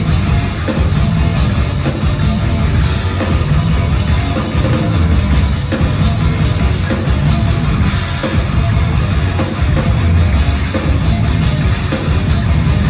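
Live instrumental progressive metal from the stage: distorted guitars over a drum kit, played loud through the concert PA and heard from within the crowd.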